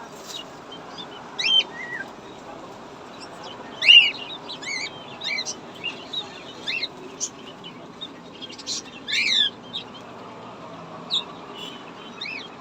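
Many small caged birds chirping: short, sharp calls and quick sweeping notes coming thick and fast, the loudest about 4 seconds in and again around 9 seconds in, over a steady low background hubbub.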